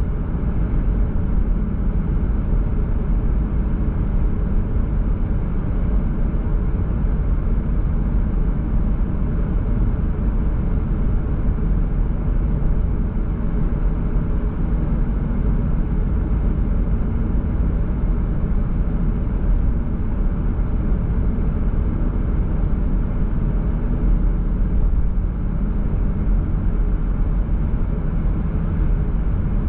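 Car driving at a steady speed: a constant low rumble of tyres on the road and engine, unchanging throughout.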